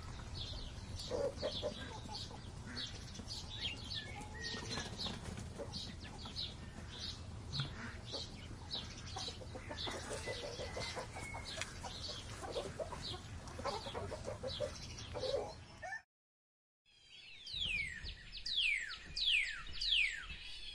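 Outdoor ambience of many birds chirping in short repeated calls, with chickens clucking. About three quarters of the way through it cuts to a second of silence, then a run of falling sweeping tones.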